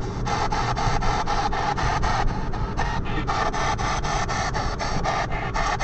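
P-SB7 spirit box sweeping through the FM/AM radio bands: a steady, choppy stream of radio static broken into short bursts at about six a second.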